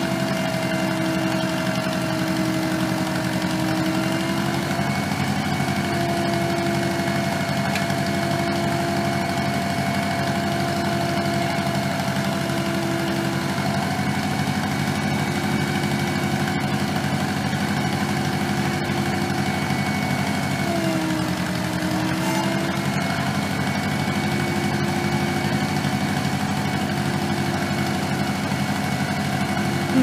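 Case 530CK tractor-backhoe's engine running at a steady speed while the backhoe boom and bucket are worked, with a steady whine over the engine note that sags in pitch for a moment about two-thirds of the way through.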